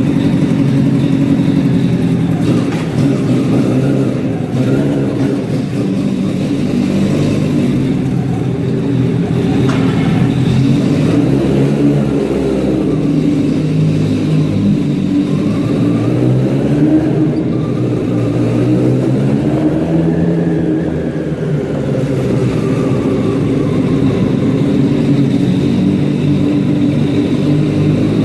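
Honda CBX 750's inline-four engine running loud through a 4-into-1 exhaust as the motorcycle is ridden, its pitch rising and falling with throttle and gear changes.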